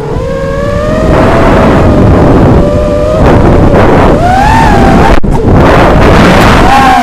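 Onboard audio of a QAV-R 5-inch FPV racing quadcopter: its four RS2205-2300 brushless motors and props whine, the pitch holding steady, then rising and falling with the throttle. Heavy wind rushes over the camera microphone.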